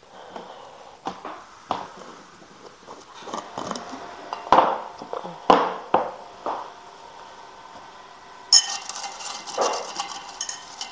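Glass jars of crackers being handled: a run of knocks and clinks of glass, with a plastic screw lid being taken off. Near the end the crisp crackers rattle and shift inside the tilted jar.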